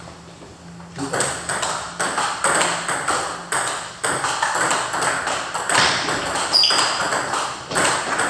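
Table tennis balls clicking off bats and tables in rallies: quick, irregular pops, several a second, starting about a second in.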